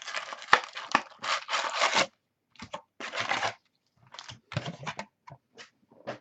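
Trading-card packaging being torn open and crinkled: a long stretch of tearing and rustling in the first two seconds, another about three seconds in, then scattered small crackles and clicks.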